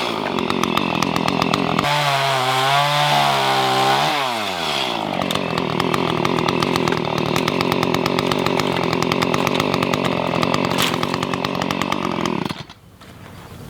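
Chainsaw cutting tree branches. Its pitch dips and climbs twice as it bites into the wood, then it holds at high speed before cutting off suddenly near the end.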